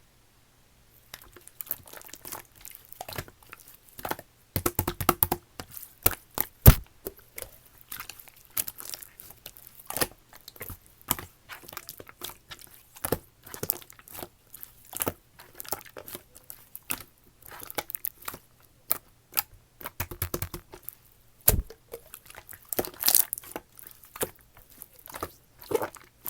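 Slime being squished and pressed by hand, giving a dense, irregular run of sticky clicks and crackles that starts about a second in.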